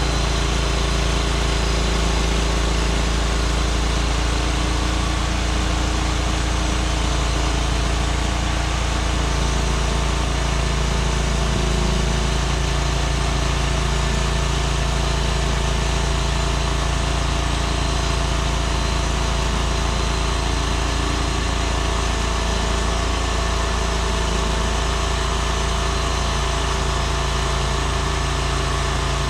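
Norwood MX34 bandsaw mill's 23-horsepower engine running steadily at a constant speed.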